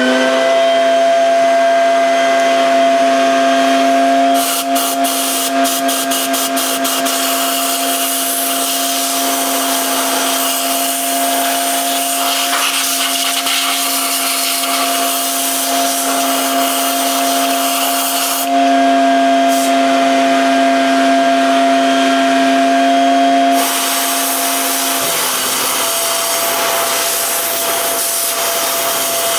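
Vacuum cleaner motor running steadily with a whine, sucking at the cylinder's water jacket while compressed air from a blow gun hisses through it to clear out debris. There is a quick fluttering spurt about five seconds in, and the air gets louder for a stretch around twenty seconds in.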